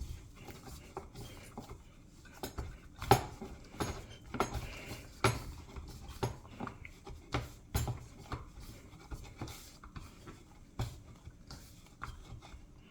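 Hands kneading a soft flour-and-water dough in a bowl: irregular rubbing and squishing, with sharp knocks against the bowl now and then, the loudest about three seconds in.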